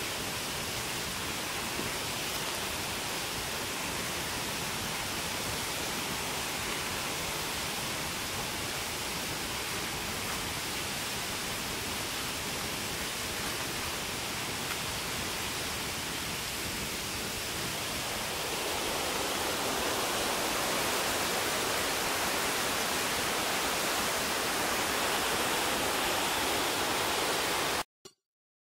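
Steady hiss with no clear events or tones. It grows slightly louder and brighter about two-thirds of the way in, then cuts off abruptly near the end.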